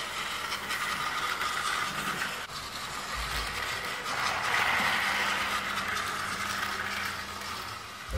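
Battery-powered toy Keikyu 1000 train running on plastic track: its small motor and gearbox whirr, with wheels rattling over the track joints. It grows louder about halfway through as it passes close, then eases off near the end.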